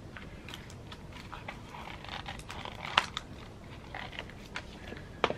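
Light clicks and taps of high-heeled shoes being handled and knocked against brick paving while a pair is slipped on. The sharpest tap comes about three seconds in, and another comes just before the end.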